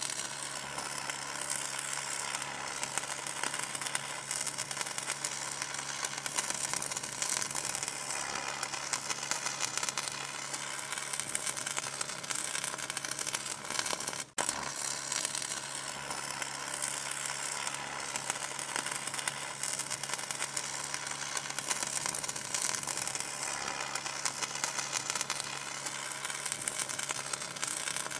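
Electric crackling and sizzling like an arcing spark, with a steady low hum underneath; it cuts out for an instant about halfway through and then carries on.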